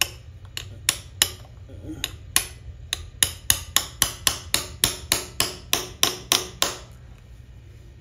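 Small ball-peen hammer striking a punch held against a steel spin-on oil filter canister, piercing a drain hole in the filter. A few spaced taps come first, then a quick, even run of sharp strikes at about four a second from about three seconds in. The strikes stop shortly before the end.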